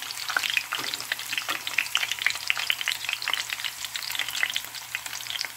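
Stuffed zucchini frying in hot oil in a pan: a steady sizzle full of quick small pops and crackles from the spitting oil.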